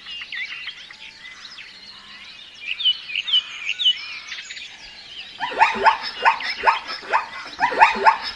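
Birds chirping, many short high calls overlapping. About five and a half seconds in, a louder run of quick calls starts, each sliding steeply down in pitch, three or four a second.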